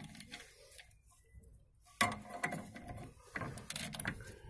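Ratchet wrench clicking as it turns M8 bolts threaded through a rear brake disc, jacking the disc off the hub, starting suddenly about two seconds in.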